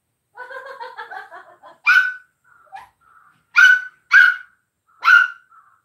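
A dog whines briefly, then gives four sharp, high-pitched barks.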